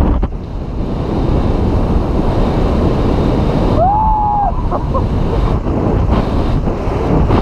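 Wind rushing over a helmet-mounted microphone on a supermoto motorcycle coasting downhill with its engine off. A short high tone sounds about four seconds in.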